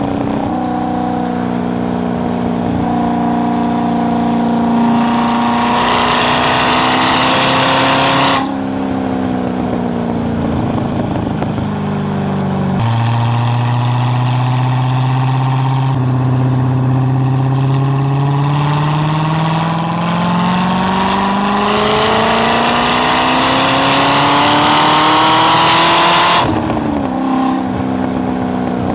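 C6 Corvette Z06's 7.0-litre LS7 V8 at full throttle, its pitch climbing with the revs. It drops sharply as the throttle closes about eight seconds in and the revs fall away. Then it climbs again in a long pull that cuts off suddenly near the end.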